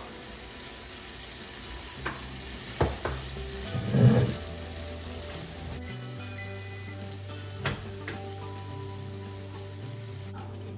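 Potato and bitter gourd strips sizzling steadily in hot oil in a frying pan, with a wooden spatula stirring them: a few scrapes and knocks against the pan about two to four seconds in, the loudest near four seconds, and one more knock near eight seconds.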